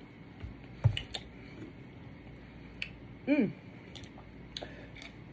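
Quiet lip smacks and mouth clicks from someone tasting a sip of soda, with a soft thump about a second in and a short falling "mm" hum a little past three seconds.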